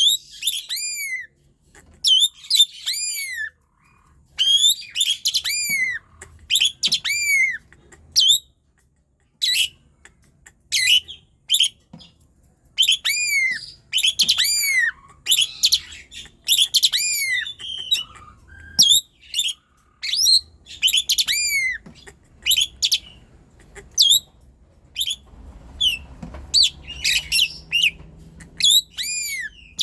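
Asian pied starling (jalak suren) singing persistently: short bursts of sharp, high whistled notes that arch and drop in pitch, several notes per burst, with brief pauses between bursts.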